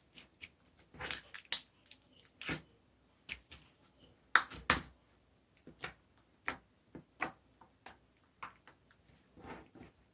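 A string of irregular sharp clicks and taps at uneven intervals, a few much louder than the rest.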